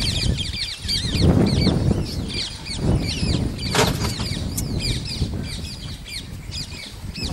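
Water sloshing and splashing as Asian elephants wade through a shallow pond, loudest about a second in, with a sharp splash just under four seconds in. Birds chirp constantly over it in quick, repeated calls.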